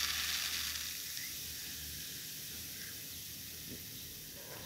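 Styrofoam beads pouring into a bowl of acetone nail polish remover, then a steady fizzing hiss that slowly fades as the beads dissolve.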